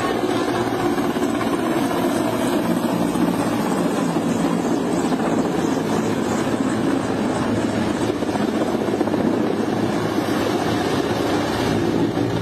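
Mil Mi-17 military transport helicopter flying low overhead, with steady, loud rotor and turbine engine noise.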